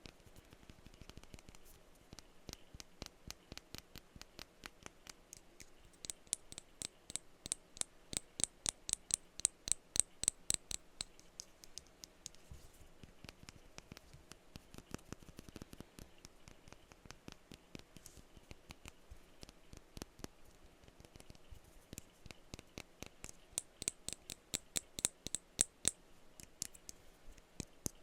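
Rapid tapping on glass perfume bottles: a steady stream of light, quick clicks, with louder, brighter spells of tapping about six seconds in and again near the end.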